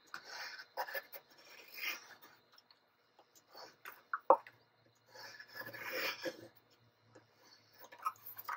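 Pencil scratching on construction paper as it traces around a plastic cup, in several short bursts of strokes, with a light tap about four seconds in.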